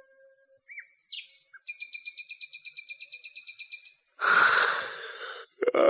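Birdsong: a few short chirps, then a fast, even high trill of about ten notes a second lasting about two seconds, marking the morning. Near the end, a loud breathy exhale.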